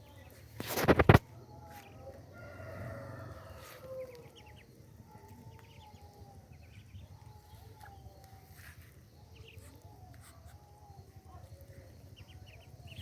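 Chickens: a loud, short call about a second in, then a rooster crowing and soft clucking.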